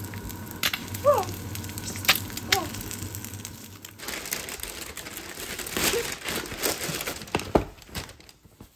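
Egg frying in a pan with a light sizzle and crackle, then a clear plastic bag crinkling as a takeout box is pulled out of it, ending in a sharp knock as the box is set down.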